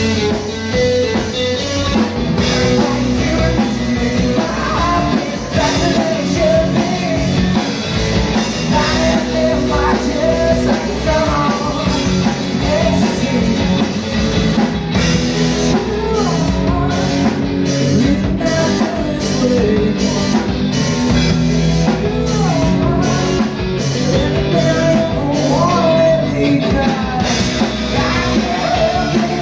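Live rock band playing: electric guitar, bass guitar and drum kit, with a voice singing over them. About halfway through, a steady beat of cymbal hits comes in.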